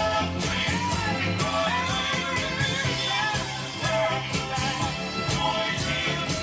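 A rock song playing, with a singer over drums, bass and guitar.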